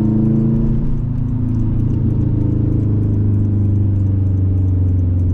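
2011 Subaru WRX's turbocharged flat-four engine and exhaust droning steadily while driving, its pitch dipping slightly early on and then holding.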